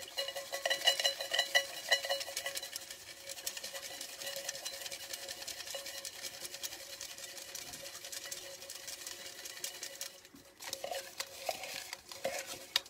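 Folded paper name slips shaken and tumbled inside a small metal bucket to mix the entries for a prize drawing: a dense, fast rattle with the tin ringing. It eases off about ten seconds in, leaving a few separate knocks.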